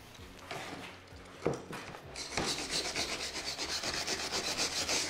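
A brush scrubbed back and forth along the edge of an HDPE plastic sheet, roughening it into a good bonding surface before plastic welding. Light scattered scratching with a single knock gives way about two seconds in to a steady, fast run of scrubbing strokes.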